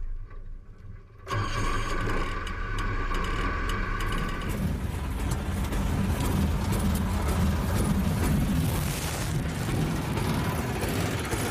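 Small car's engine running steadily at idle, a low rumble that starts after a brief drop in sound about a second in, with a thin whine over it for the first few seconds.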